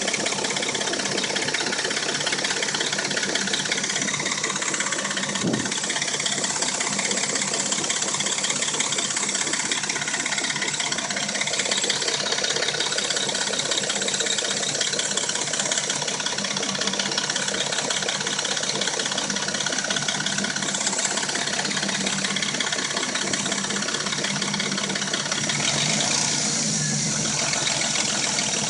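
Dodge Intrepid engine idling steadily, with a continuous fast mechanical noise over the running that the owner puts down to the timing chain.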